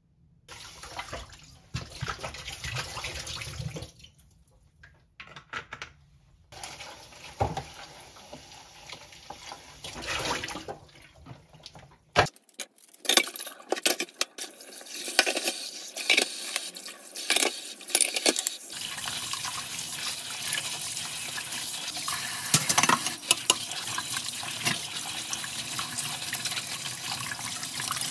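Dishes clinking and knocking as they are gathered at a kitchen sink. About two-thirds of the way through, the tap starts running steadily into the sink as a pot and utensils are washed under it, with knocks of dishes against the sink.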